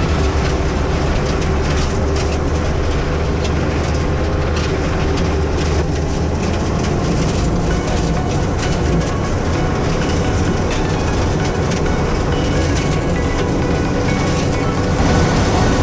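SAME Tiger Six tractor's six-cylinder diesel engine working steadily under load, heard from inside the cab, together with the Seppi M. flail mulcher shredding corn stalks.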